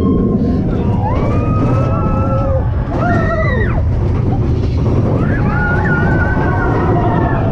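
Mine-train roller coaster running at speed: a heavy rumble of the cars on the track and wind on the camera, with riders letting out long high-pitched whoops about a second in, around three seconds, and again from about five seconds on.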